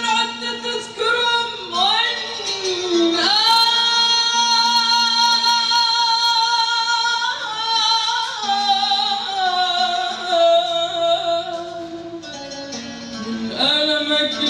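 A woman singing into a microphone, holding long notes with vibrato and sliding up and down between them.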